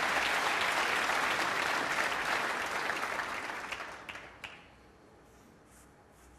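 Snooker audience applauding, fading out about four and a half seconds in. Near the end a single sharp click is heard as the cue strikes the cue ball.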